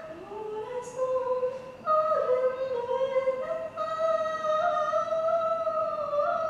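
High wordless singing: long held notes that slide up and down between pitches, with two lines overlapping through the middle.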